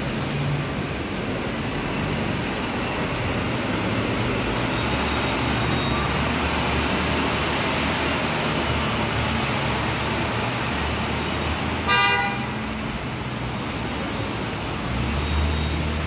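Elevated New York City subway train approaching the station with a steady low rumble, and one short horn toot about twelve seconds in.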